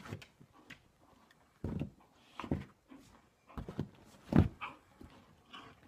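A dog tussling with a cat: short scattered dog noises and scuffling, the loudest about four and a half seconds in.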